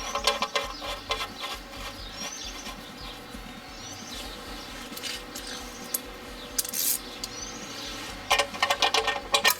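A socket ratchet clicking in a fast run near the end as the 13 mm sump drain plug is wound back in. Birds chirp now and then in the background.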